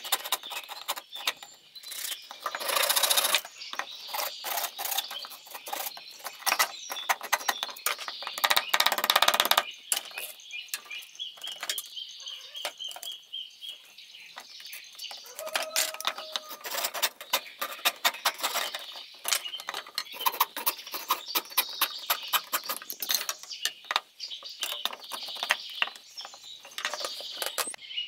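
Hand work on bamboo: a rapid, irregular run of sharp clicks and knocks, with two louder noisy bursts about three and nine seconds in.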